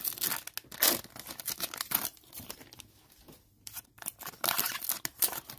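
Foil wrapper of a trading-card pack torn open and crinkled in the hands, in short rustling bursts, loudest about a second in and again near the end.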